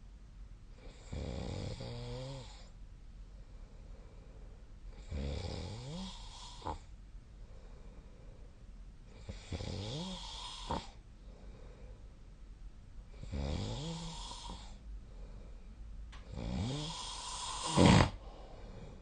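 A sleeper snoring: five snores about four seconds apart, each rising in pitch. Some end in a short click, and the last is the loudest, ending in a sharp snort near the end.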